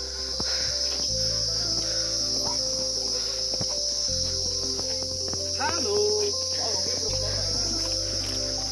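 Dense chorus of forest insects: a steady, high-pitched buzz that never breaks.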